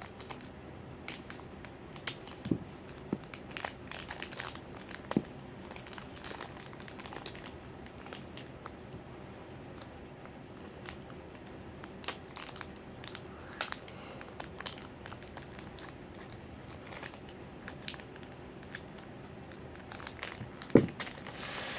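Plastic blind-pack wrapper crinkling and tearing in irregular crackles as a hard-to-open pack is worked at by hand.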